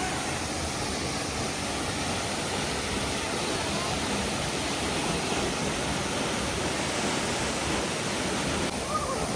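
Steady rush of a waterfall, an even wash of falling water with no breaks, and faint voices near the end.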